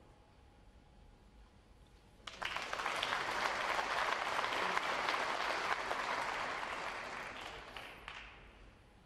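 Audience applauding. It starts suddenly about two seconds in and dies away near the end.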